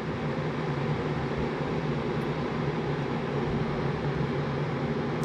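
Electric kettle heating toward the boil: a steady rushing noise with a low hum underneath.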